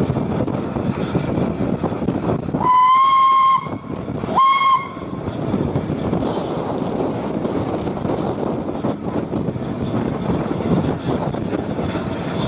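Steam whistle of Peppercorn A1 Pacific 60163 Tornado sounded twice, a blast of nearly a second and then a shorter one, each sliding up quickly to one high steady note. Between and around the blasts is the steady running noise of the locomotive and the wind, heard from the footplate.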